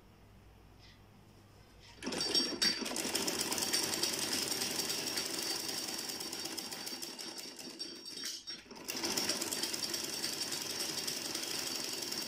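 Sewing machine stitching a seam with a fast, steady clatter of needle strokes. It starts about two seconds in, stops briefly about two-thirds of the way through, then runs on.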